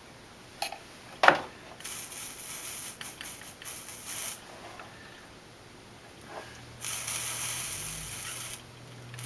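Hot soldering iron sizzling on flux and solder in two hissing stretches, the second longer and louder, after a sharp click about a second in.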